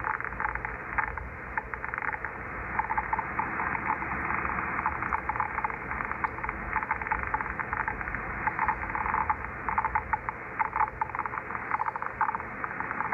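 Scratching, crackling digital interference heard as receiver audio from an Icom IC-7300 HF transceiver: a dense, irregular stream of rapid clicks and scratches, thin and narrow as through the radio's receive filter. It is an unidentified interference signal that turns up all over the HF bands.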